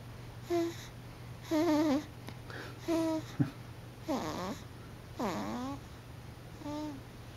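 Short, squeaky, whistling snores, about one a second; some waver in pitch and some slide downward. A single sharp click about three and a half seconds in.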